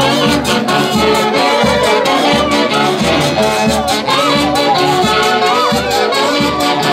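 Live huaylarsh from an Andean orquesta típica: saxophones and trumpets play the melody together over a steady, even beat.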